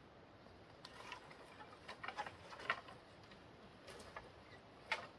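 Irregular light taps and clicks, some in quick little clusters, the sharpest one near the end.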